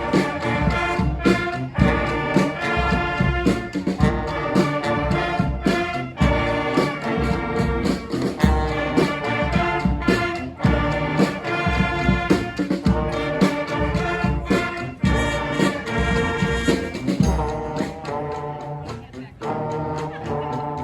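Live street brass band of horns, trombone among them, playing a tune over a steady percussive beat. The playing gets quieter near the end.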